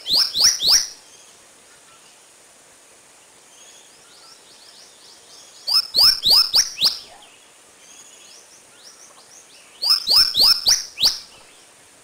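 A songbird singing phrases of four or five quick, slurred whistles, one phrase about every four seconds, over a faint steady hiss of running water.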